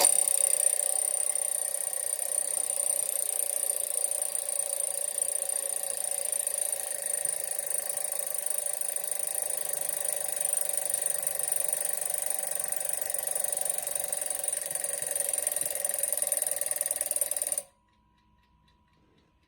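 Bell alarm of a vintage Landau wind-up alarm clock ringing as one steady, unbroken ring, then cutting off suddenly about 17 seconds in. The alarm is not sounding properly, with the bell's adjustment hard to get right by the owner's account.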